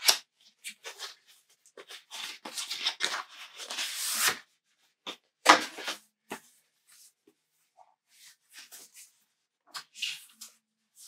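Packaging of a makeup palette being handled and opened: irregular rustling and crinkling, densest in the first half, then a single sharp snap or click about five and a half seconds in, the loudest sound, followed by a few light ticks.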